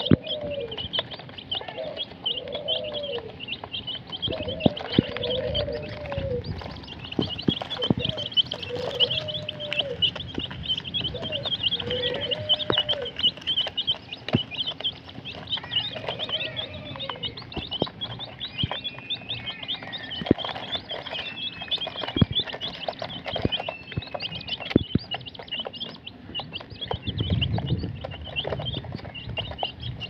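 A flock of young chicks peeping rapidly and continuously, high-pitched, with scattered sharp pecking clicks as they feed from a plastic feeder. Through the first half, a lower, arched call repeats about every second or two.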